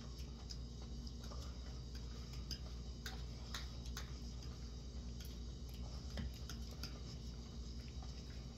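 Plastic forks clicking and scraping against a glass bowl of spaghetti, in light irregular clicks over a steady low hum.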